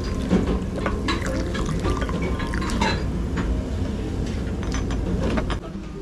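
Broth poured from a ceramic pitcher into a stainless steel pot of leftover rice crust, filling steadily with light clinks of the pot and dishes. The pouring stops near the end.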